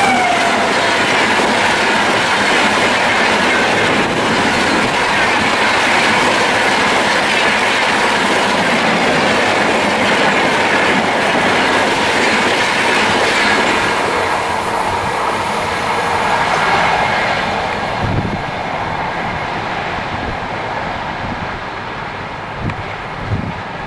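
Howrah–Pune AC Duronto Express passing at speed: loud steady rush and clatter of the coaches' wheels on the rails for about fourteen seconds, then fading away as the train recedes. A few low thumps near the end.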